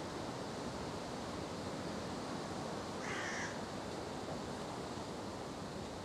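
Steady outdoor background noise, with a single short, harsh bird call about halfway through.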